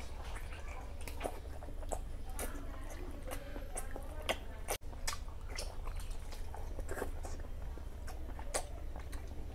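Close-up wet chewing and lip-smacking of a man eating soft mutton fat and rice, with irregular sharp smacks and squelches. A steady low hum runs underneath.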